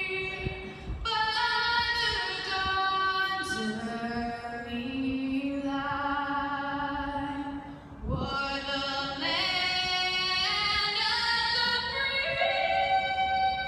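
A woman singing solo, slow, holding long notes that step up and down in pitch, with a short break about eight seconds in.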